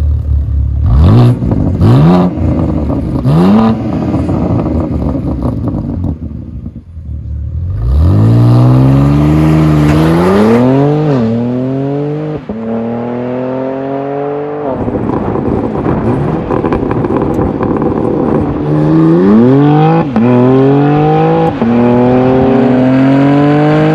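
BMW G8x M3/M4's twin-turbo inline-six through a Dinan valved axle-back exhaust and X-pipe. It blips the revs a few times, then accelerates hard with a climbing engine note that drops at each upshift. A second hard pull with quick upshifts comes later.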